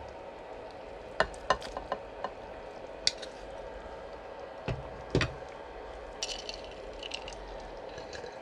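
Eating pork-bone soup: utensils clicking and knocking against the bowl, with soft stirring of the broth, several sharp clicks about a second in, two heavier knocks around five seconds and a few more after six. A steady low hum runs underneath.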